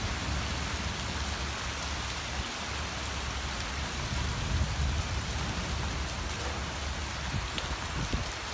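Heavy rain pouring down, a steady even hiss, with an uneven low rumble underneath.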